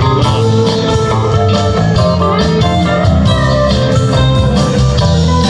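Live rock band playing through a festival PA, with electric guitar lines over bass and a steady drum beat, heard loud from within the audience.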